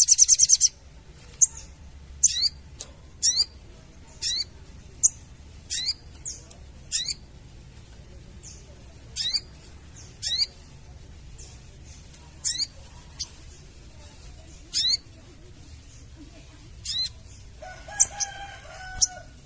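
Crested jay (sogon) calling: a brief fast rattling chatter at the start, then a string of short, sharp high notes about once a second.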